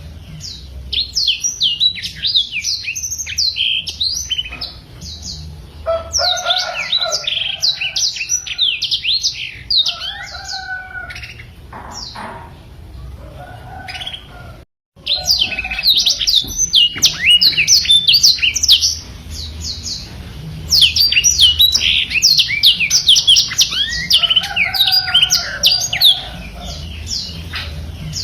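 Black-throated canary (blackthroat) singing vigorously: long, fast twittering runs of high, quick downward-slurred notes in bursts separated by short pauses, with some lower warbled phrases. The song breaks off to silence for a moment about 15 seconds in, then resumes.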